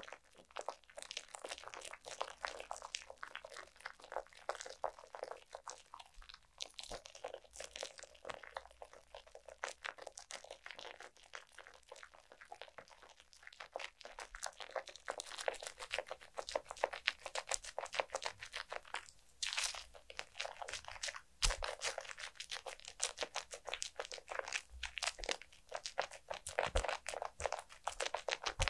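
Thick whipped foam being spread and pressed over a mannequin's face with bare hands, giving a dense, continuous fine crackle.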